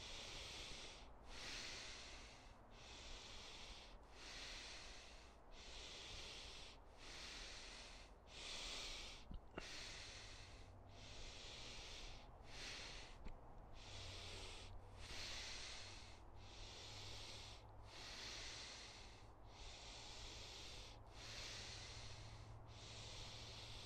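A man breathing quickly and evenly in and out through his nose: connected breathing with no pause at the top or bottom, a full in-and-out about every second and a half. Each breath is a soft rush of air.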